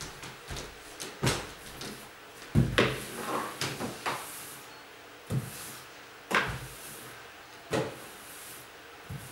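Furniture and household things being moved and set down: a string of irregular knocks and bumps, the loudest about two and a half seconds in.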